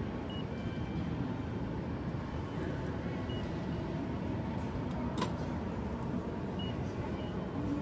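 Steady hum of a busy station concourse, with a few faint short beeps from a touchscreen ticket machine as its buttons are pressed, and a single sharp click about five seconds in.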